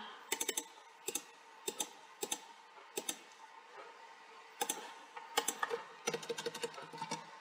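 Computer mouse clicks and keyboard keystrokes. Single clicks come a fraction of a second to a second apart for the first three seconds, then a few more, and near the end a quick run of keystrokes.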